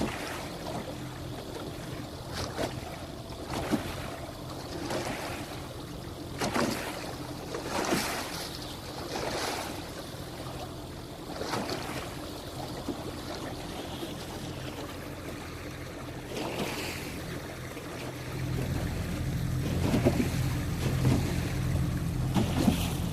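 Boat engine running steadily under way, with the hull slapping and splashing through a few-foot waves every second or two and wind on the microphone. The engine grows louder near the end.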